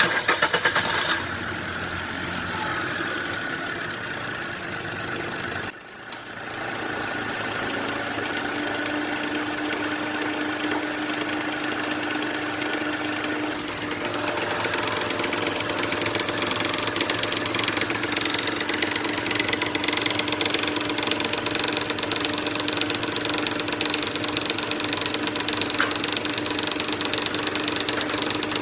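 Car engine idling with a fast, steady ticking-knocking noise from the engine, an abnormal noise. The sound drops out briefly about six seconds in and runs a little louder from about halfway.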